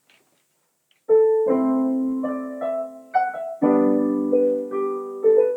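Background piano music: after about a second of silence, slow piano notes and chords begin, each struck note ringing and fading.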